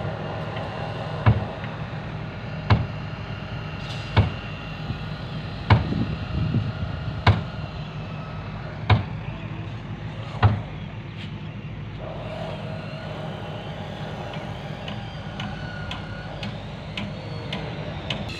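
Steady low hum of construction machinery, with a sharp knock repeating about every second and a half that stops about ten seconds in.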